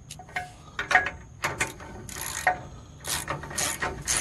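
Hand socket ratchet clicking in short, irregular strokes as the bumper's mounting-bracket bolts are snugged, left only lightly tightened so the bumper can still be shifted straight. The strokes come closer together in the second half, about two a second.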